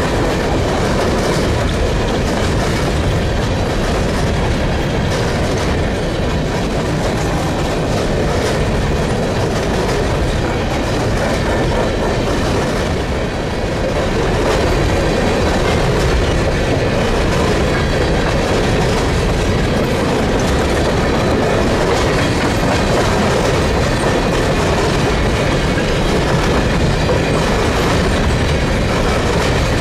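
Empty coal train of steel gondola cars rolling past: a steady rumble and clatter of wheels on the rails, louder from about halfway as the cars pass close by.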